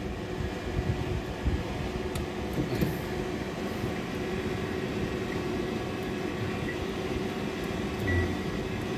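A 72 V transformer inverter running under a light load of cooling fans gives a steady electrical hum mixed with fan whir. It is drawing little current, about 0.24 A. There is a small low bump about eight seconds in.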